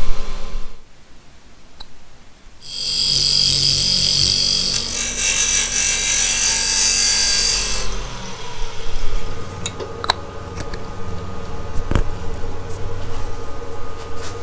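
Wood lathe turning a small piece of wood, with a turning tool cutting it in a loud hissing scrape from about three seconds in to about eight. After that the lathe runs on with a quieter hum, broken by a few sharp clicks and one knock.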